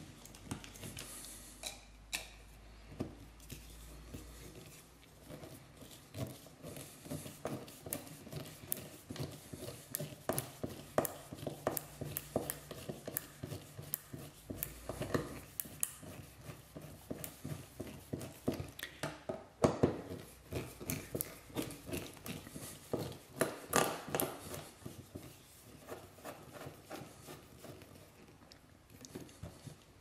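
Robertson screwdriver turning the mounting screws of a duplex receptacle into a metal electrical box: a string of small metal clicks and scrapes, busiest in the middle and thinning out near the end.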